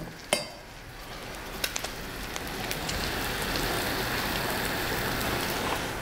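Food sizzling and bubbling in pans on a gas hob: a sea bass fillet frying skin-side down and a wine-and-stock sauce reducing at a boil. The steady hiss swells over the first few seconds and then holds, with small crackles through it. A single sharp tap comes just after the start.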